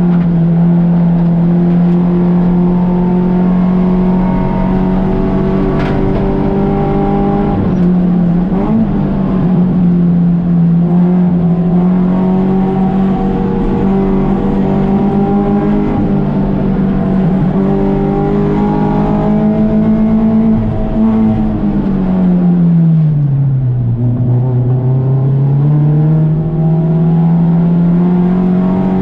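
A Touring-class race car's engine running hard at high revs. Its note stays fairly level with small steps, then falls steeply about three-quarters of the way through and climbs again.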